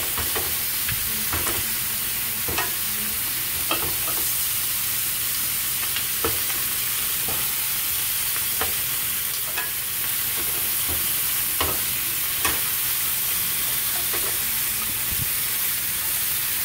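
Chicken drumsticks sizzling steadily in hot oil in a frying pan, with scattered clicks and knocks of metal tongs as the pieces are turned over.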